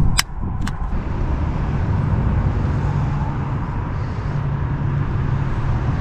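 Butane torch lighter: the igniter clicks twice in the first second, then the flame burns with a steady hiss and low rumble while it heats shrink tubing over crimped wire connectors.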